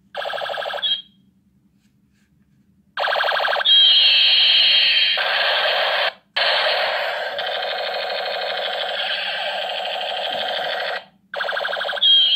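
Battery-powered pink plastic toy ray gun sounding its electronic firing effects: a fast-pulsing, alarm-like warble with sweeping zaps, in four bursts as the trigger is pulled and released, with a two-second pause about a second in and shorter breaks about 6 and 11 seconds in.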